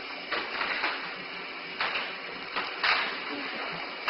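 Short, forceful breaths rushing through the valves of an M40 gas mask as it is cleared and its seal checked: several sharp bursts of air, the loudest about three seconds in.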